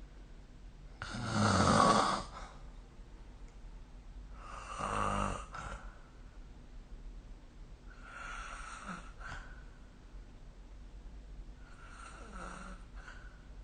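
A sleeping person snoring: four snores about four seconds apart, the first the loudest and the later ones fainter.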